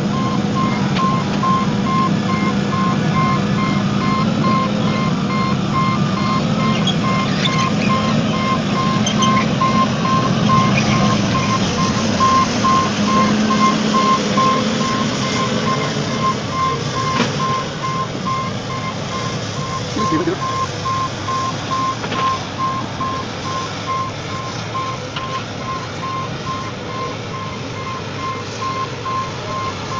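John Deere 270C LC amphibious excavator's diesel engine working under load as it crawls on pontoon tracks, with a warning alarm beeping steadily. The engine noise eases about halfway through.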